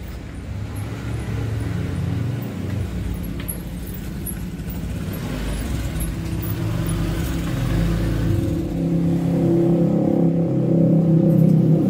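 Engine and road noise of a van heard from inside its cargo area, where race motorbikes are strapped down. The low engine hum grows louder over the second half as the vehicle picks up speed.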